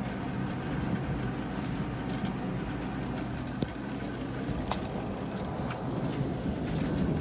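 Steady low rumbling noise of a rainy thunderstorm, with a few sharp ticks, clearest about three and a half and four and a half seconds in.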